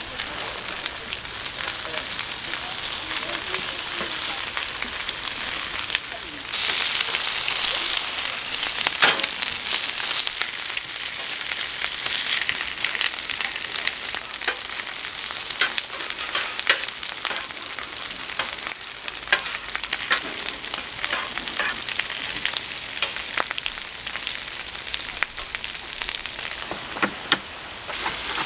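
Pork offal sizzling on a large iron griddle: a steady frying hiss scattered with sharp pops and clicks, growing louder about six and a half seconds in.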